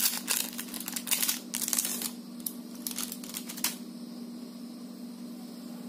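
Foil wrapper of a chocolate bar crinkling and rustling as it is peeled open by hand, a run of crackles that stops about two-thirds of the way through. A faint steady hum lies underneath.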